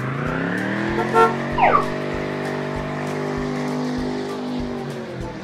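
Race-car engine sound effect for a toy car: the engine revs up over the first second, then holds a steady pitch. A short tone sliding downward cuts across about a second and a half in.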